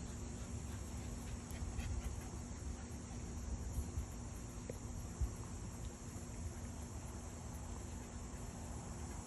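Quiet steady background noise: an even high hiss over a low hum, with a few faint ticks and a small knock about five seconds in. No meowing.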